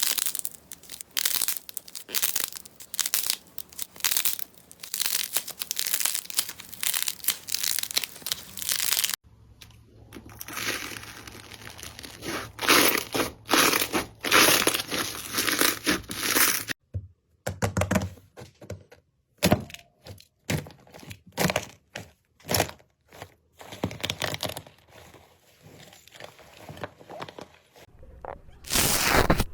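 Slime being squeezed and pressed by hand, giving dense crackling, popping clicks. The texture changes abruptly about 9 and 17 seconds in and again near the end, as one batch of slime gives way to another.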